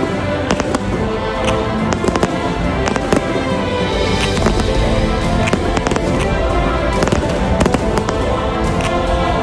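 Fireworks going off in quick succession, with many sharp bangs and crackles, over loud music that plays throughout.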